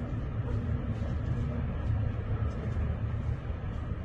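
Steady low rumble of outdoor background noise picked up by a phone microphone, with no distinct bangs or impacts.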